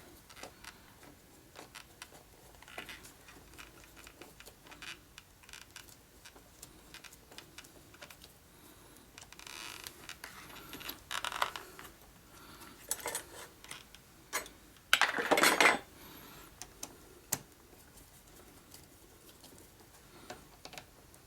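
Hand screwdriver and small steel screws being worked into a motorcycle fuel pump controller: scattered light metallic clicks and taps. There is a louder scraping rustle for about a second, some 15 seconds in.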